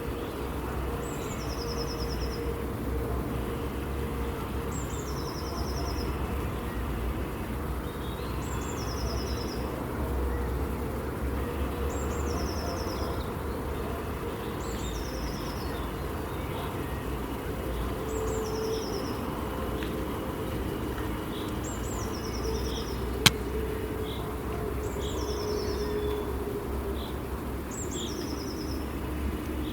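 A songbird repeats the same short high phrase about every three and a half seconds, a quick falling note running into a brief buzzy trill, with faint calls from other birds. A steady low rumble runs underneath, and a single sharp click stands out about two-thirds of the way through.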